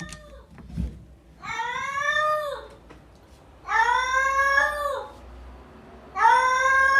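Cat meowing three times, each a long drawn-out meow of about a second, rising and then falling in pitch.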